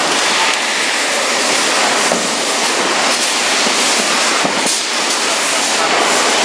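Electric welding arc crackling and hissing steadily.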